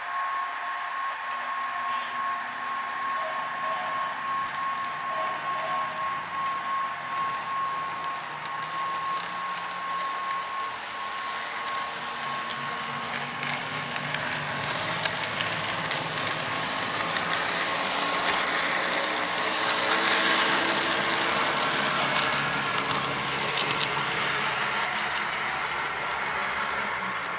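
Bowser HO-scale ALCO C-636 model locomotive running along the track, its motor and truck gears whirring steadily with wheel noise on the rails. The model is new, with little run time. The sound grows louder in the middle as it passes close, then eases as it moves away.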